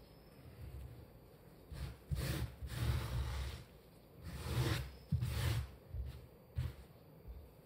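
Flour being poured onto a heap of flour in several short pours: a soft rustling hiss each time, with dull low thuds underneath.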